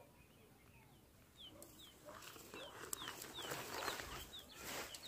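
Tent fabric rustling and crinkling as it is pulled open and spread out, loudest in the second half, while a bird calls a rapid series of short, high, falling chirps.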